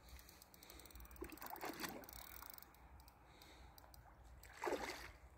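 Faint, intermittent splashing and sloshing of a hooked carp thrashing at the surface as it is played toward the landing net, with a brief run of rapid ticking about a second in and a louder splash near the end.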